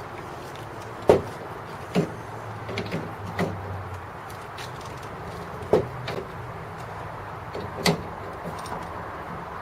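Short knocks and clicks of metal gas-pipe fittings and tools being handled while pipe dope is put on the threads, about eight in all, over a steady low hum.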